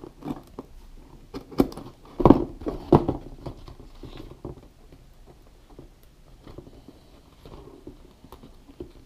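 A utility knife blade cutting and scraping through skateboard grip tape over cardboard, then fingers picking at the cut piece. Irregular scratchy cuts and clicks, loudest about two to three seconds in, then softer rustling and handling.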